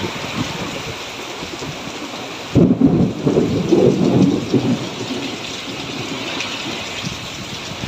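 Rain falling steadily, with a loud thunderclap about two and a half seconds in that rumbles for around two seconds before fading back into the sound of the rain.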